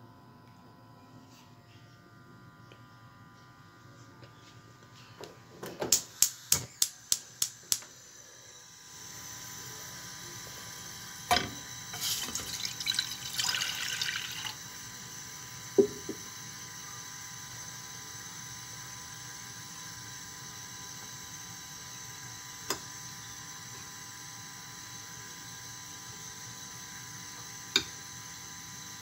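Water poured from a bowl into a stainless steel saucepan for a couple of seconds, with sharp knocks against the pan before and after. Earlier, a quick run of about eight sharp clicks, then a steady hiss sets in.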